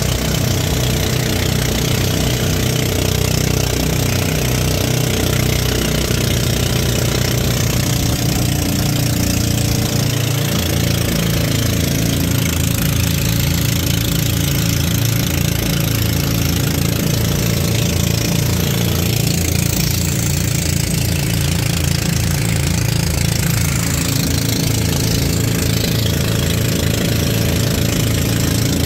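Outrigger boat's engine running steadily under way, its pitch wavering briefly about ten seconds in, with a hiss of water and wind over it.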